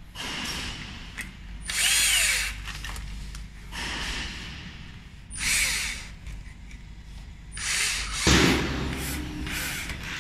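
Bosch cordless drill-driver running in about six short bursts, its motor whine rising and falling with the trigger, as it drives screws into a wall-mounted push-button switch box.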